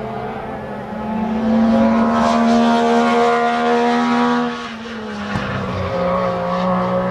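MG Metro 6R4 rally car's V6 engine running hard at high revs. It swells loud about a second in as the car passes close, drops away suddenly after about four and a half seconds, and comes back at a lower pitch near the end.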